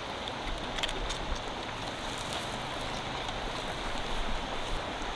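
Steady rushing water noise with scattered faint ticks and drips.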